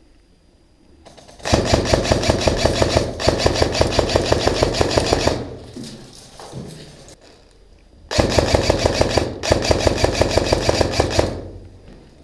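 Airsoft gun firing long full-auto bursts: about four seconds of rapid fire with a brief break in it, a pause of about three seconds, then about three more seconds of fire.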